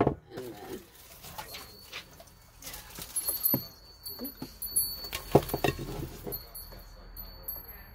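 Handling noises on a tabletop: knocks and clatter from a metal craft bucket and artificial flower stems, with a cluster of louder clatters about five seconds in as the flowers are pushed into the bucket. A faint steady high-pitched tone sounds through much of it.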